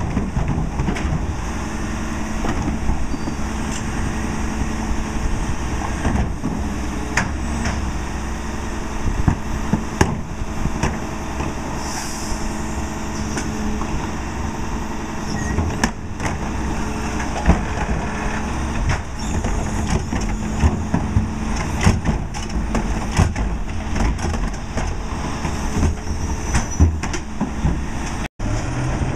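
Crane Carrier LET2 rear-load garbage truck's diesel engine running steadily while plastic wheeled carts are tipped and knocked against the rear hopper of its Leach 2R-II packer, with repeated sharp knocks and clatter.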